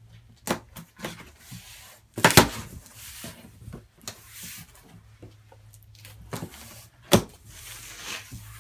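A taped cardboard box being opened and handled: scraping and rustling, broken by sharp knocks, the loudest about two seconds in and another about seven seconds in.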